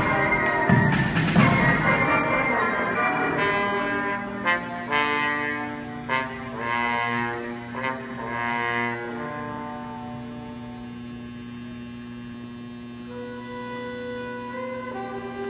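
Cadet band of brass, saxophones, flutes and drums playing. A loud full passage with sharp hits gives way to a few short swelling chords, then settles into a soft held chord from about ten seconds in.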